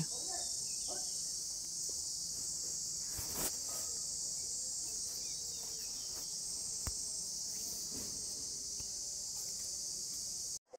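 Steady high-pitched background hiss with a couple of faint clicks, cutting off abruptly near the end.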